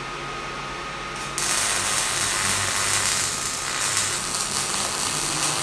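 MIG welding arc tack-welding steel sheet to angle iron: a loud, steady hiss starts about a second and a half in and runs for about four seconds. A faint steady whine sounds throughout.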